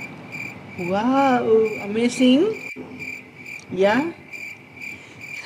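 Cricket chirping, evenly repeated about twice a second. Over it, a woman makes wordless sounds: a rising-and-falling hum about a second in, and a falling groan of disgust near four seconds.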